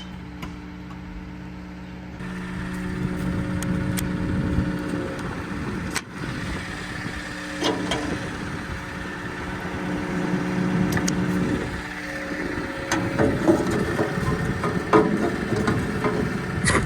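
Diesel engine of farm machinery running steadily at a fairly low speed, getting louder about two seconds in and rougher in the second half, with scattered knocks and clunks over it.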